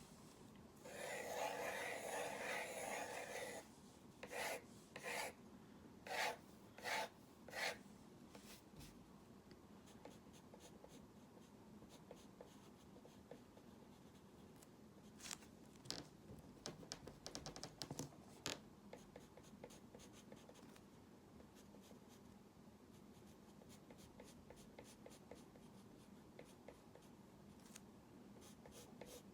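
Drawing strokes scratching on a drawing surface. A continuous run of strokes lasts a couple of seconds starting about a second in, then come five short separate strokes, then faint scattered scratching with a cluster of quicker strokes a little past the middle.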